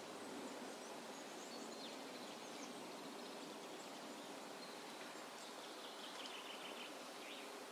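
Forest ambience recording: a steady soft hiss with faint, high bird chirps, including a quick run of short chirps a little past halfway.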